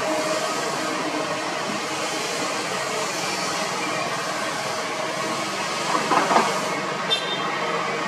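Kobelco SK200 hydraulic excavator running steadily as it digs, its diesel engine working under load. About six seconds in comes a brief burst of clatter from the bucket in the soil, then a single short click.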